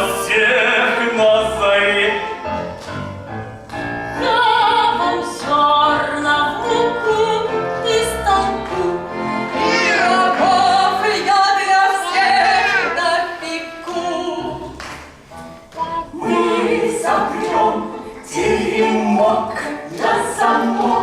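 Stage-musical song: singing over a musical accompaniment, from the finale of a children's musical, with a brief drop in loudness about fifteen seconds in.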